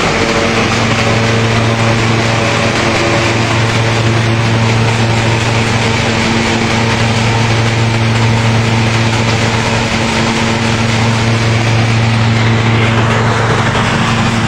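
Hazelnut thresher (patoz) running steadily: a loud, even engine hum with a dense noise of the threshing drum over it.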